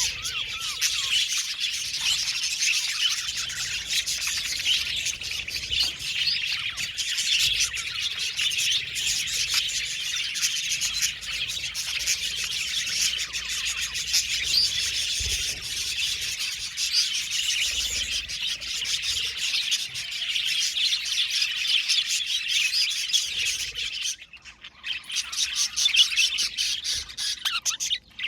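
A flock of budgerigars (budgie parakeets) chattering, warbling and chirping all together in a dense, continuous twitter of many birds. It briefly drops away for about a second near the end, then resumes.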